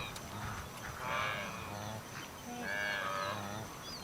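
Wildebeest herd calling: drawn-out, wavering moo-like calls, two of them prominent, each lasting about a second, with a faint bird chirping high above.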